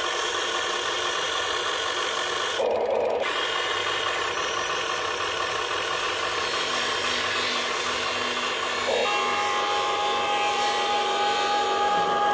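Amewi G704E RC excavator's electric motors and gearboxes whirring as the arm and grapple move, with a steadier, higher whine joining about nine seconds in.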